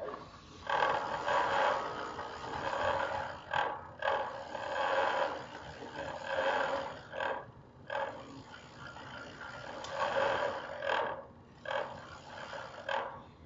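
Water rushing and churning around a camera lowered into a deep well shaft at the water line. The sound comes in loud surges of a few seconds each, with brief breaks between them.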